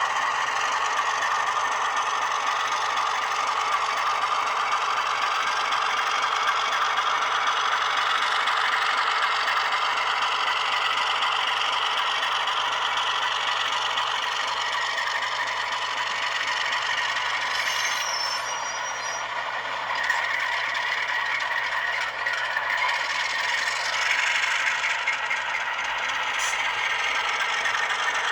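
Model Alco RS-3 diesel locomotive's LokSound sound decoder playing a diesel engine running sound through the model's small speaker, steady and rattly, with little bass.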